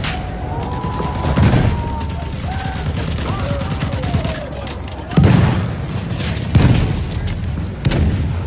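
Battlefield gunfire sound effect: a continuous rumble of rifle and machine-gun fire, with four heavy shots or blasts at irregular intervals.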